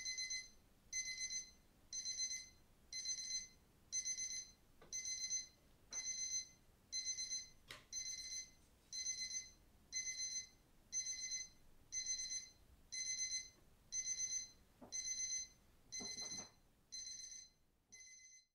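Electronic timer alarm beeping, about one beep a second, each beep about half a second long: the countdown has run out, signalling the end of the session.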